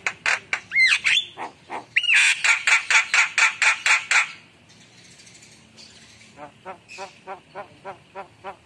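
Javan myna calling: rapid harsh chattering notes, about five a second, broken by a couple of whistled glides. After a short lull, a softer run of clicking notes follows.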